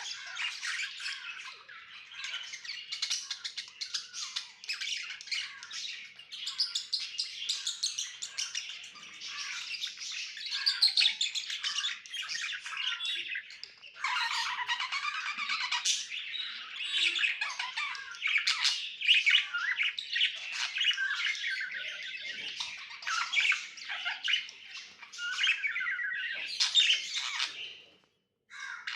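Budgerigars chattering and warbling nonstop, many quick overlapping calls with sharper squawks mixed in; the chatter cuts out for a moment near the end.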